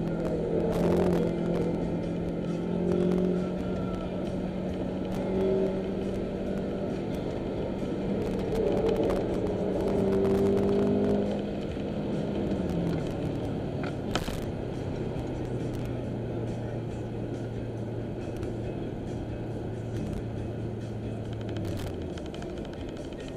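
Subaru Forester's flat-four engine and tyre noise, heard from inside the cabin while driving. The engine note holds steady, then drops to a lower steady pitch a little past halfway, as when the driver eases off or changes up. There is a single sharp click about two-thirds of the way in.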